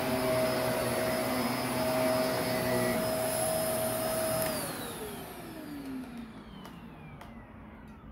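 Shark Navigator upright vacuum running on a rug, then switched off about four and a half seconds in: its motor whine falls steadily in pitch and fades as it spins down. A few faint clicks near the end.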